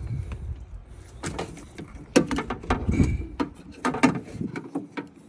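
Irregular clicks, knocks and rattles of hard parts being handled and fitted inside a pickup truck's door while a window regulator is reinstalled, with the loudest knocks about two, three and four seconds in.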